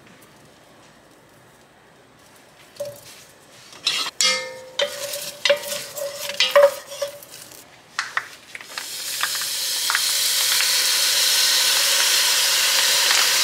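Wooden spoon stirring and knocking charred onion and ginger in a hot enameled cast-iron Dutch oven, with a short squeaky scrape. About two-thirds of the way in, a steady loud sizzling hiss starts as liquid is poured into the hot pot and steams.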